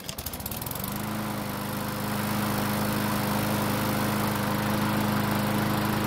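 A Yard Machines walk-behind mower's small overhead-valve four-stroke engine, hot after about five minutes of running, starts on a pull of the rope and comes up to a steady run within about a second. The easy hot start is, as the owner reads it, a sign that the valve lash is more than likely within tolerance.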